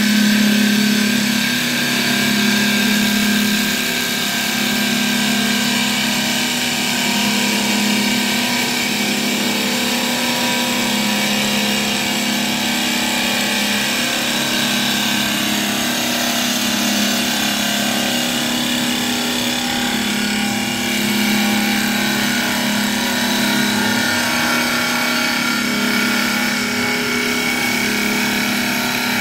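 Two-spindle CNC wood lathe running its automatic cutting program, turning two wooden blanks: a steady machine hum with a hiss over it.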